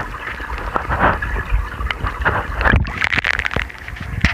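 Wind rumbling on the microphone, mixed with the knocks and rustles of a handheld camera being moved around.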